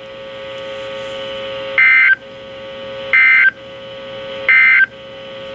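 Emergency Alert System end-of-message data bursts on NOAA Weather Radio: three short, shrill digital screeches about a second apart, marking the end of the flood warning, over a steady hum and hiss.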